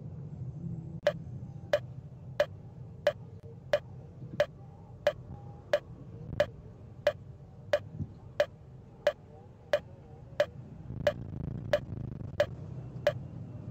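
Steady, even ticking, about three ticks every two seconds, starting about a second in, over a low steady rumble.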